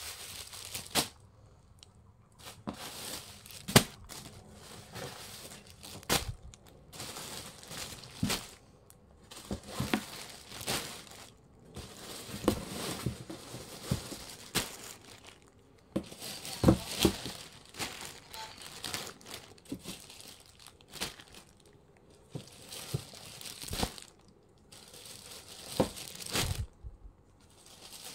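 Clear plastic polybags around new clothing crinkling and crackling as they are handled, in uneven rustles with sharp cracks now and then.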